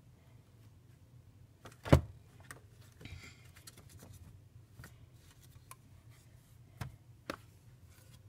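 Handling noise: a sharp knock about two seconds in, a soft rustle a second later, and two lighter taps near the end, as a plush toy and the phone are moved about a shelf.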